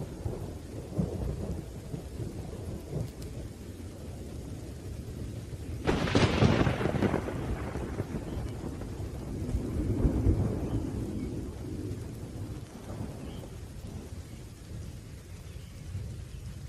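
Steady rain with low rolling thunder. A sharp thunderclap breaks about six seconds in and dies away over a second or two, and another rumble swells around ten seconds in.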